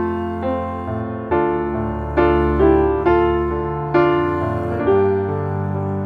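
Background music: a slow piano piece. Notes or chords are struck about once a second, each left to ring and fade.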